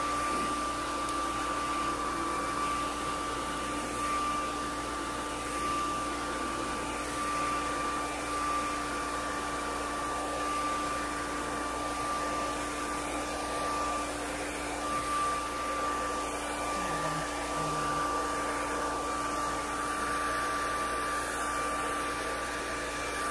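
Handheld hair dryer running steadily while blowing onto hair: an even rush of air under a steady whine that holds one pitch.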